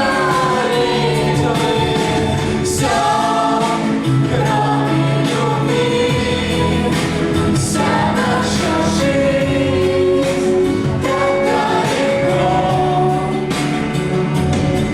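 Music: a song with sung vocals over instrumental backing, the voices held on long notes.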